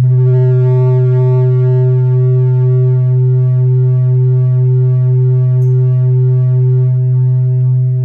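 Modular synthesizer feedback loop, run through a Make Noise Echophon delay and Erbe-Verb reverb and back into a ModDemix, sounding as a loud steady low drone with a stack of overtones above it and a gentle regular pulsing.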